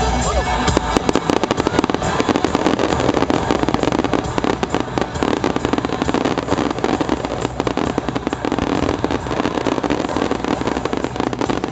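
Fireworks going off in a rapid, continuous barrage of bangs and crackles, many each second.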